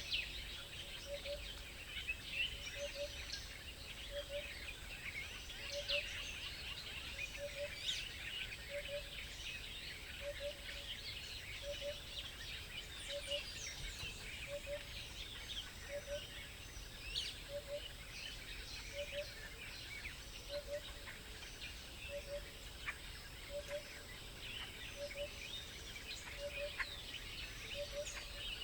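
Many birds chirping and twittering without pause, a busy chorus of short high calls. Under it a low double note repeats evenly, a little under once a second.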